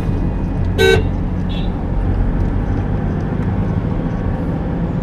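Steady low rumble of engine and road noise heard from inside a moving car. About a second in there is a short vehicle horn toot, followed half a second later by a fainter short tone.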